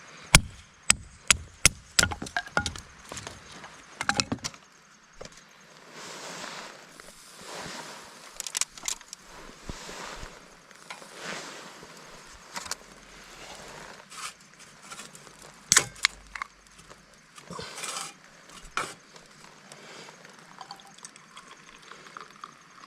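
A quick run of sharp knocks, about three a second over the first two seconds, then scattered single knocks with rustling in between.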